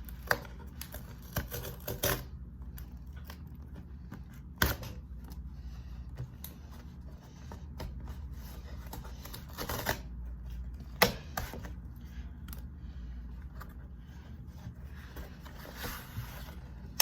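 Packaged items being handled and taken out of an MRE ration pack: scattered sharp clicks and knocks with packaging rustle, the loudest about five seconds in and again about eleven seconds in, over a low steady hum.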